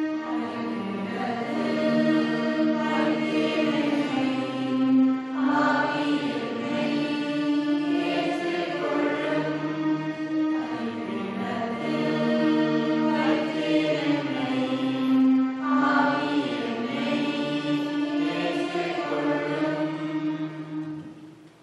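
Voices singing a slow offertory hymn in long held notes, fading out shortly before the end.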